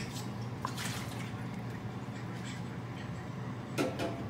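A metal ladle scraping and clinking against a pot and a mesh strainer while scooping mashed grape pulp, a few light clicks and one sharper clink near the end, over a steady low hum.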